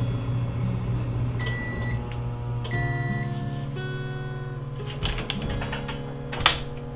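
Microwave-convection oven running with a steady fan hum, giving two short electronic beeps to signal that baking is done, then the oven door clicking and clunking open about five to six seconds in. Guitar background music plays throughout.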